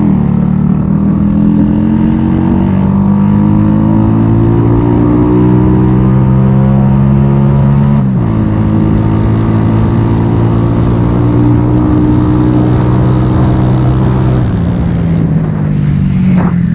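A 70cc single-cylinder motorcycle engine with an aftermarket exhaust, pulling in gear. Its pitch climbs for about eight seconds, drops suddenly at a gear change and then holds fairly steady. It eases off near the end and briefly rises again.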